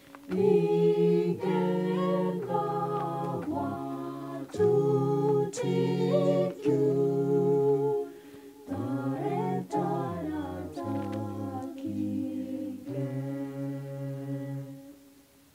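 A cappella vocal group singing a Kalenjin hymn in harmony, with held chords over a low bass line and no instruments. The singing fades out near the end.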